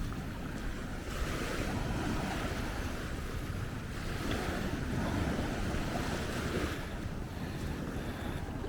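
Ocean surf washing onto a beach, swelling and easing every few seconds, with wind rumbling on the microphone.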